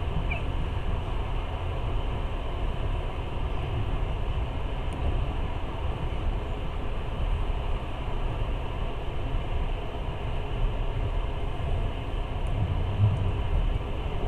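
Passenger train running at speed: a steady rumble of wheels on the rails, with a couple of brief knocks in the last few seconds.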